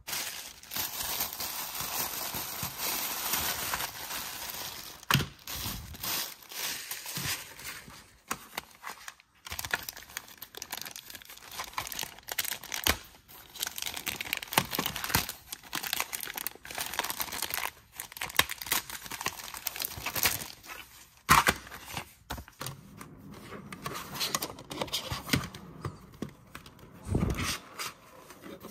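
Thin clear plastic bag crinkling and rustling as hands open it and pull it apart. Sharp clicks and taps of hard plastic toy parts break in now and then, loudest about five seconds in and again about two-thirds of the way through.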